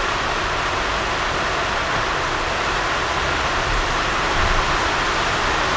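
A steady hissing rush of noise, even throughout, with no separate knocks or clicks.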